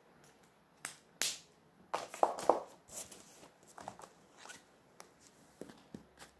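Markers and paper being handled: a series of sharp clicks and short scratchy rustles, the loudest cluster about two seconds in, with lighter clicks after.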